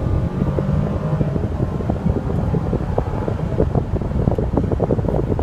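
Mercedes-Benz SL550's turbo V8 running as the car drives, heard from inside with heavy wind buffeting on the microphone and road rumble.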